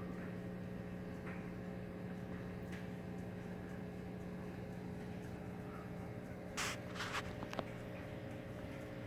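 Steady low electrical hum of running aquarium equipment, the air pump that keeps the tank bubbling for oxygen, under a faint even hiss. A few short scratchy noises come about two-thirds of the way through.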